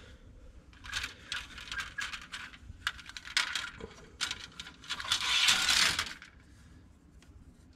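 White styrene sprues of a Revell plastic model kit clicking and clattering against each other as they are lifted and pulled apart. A longer scraping rustle comes about five seconds in.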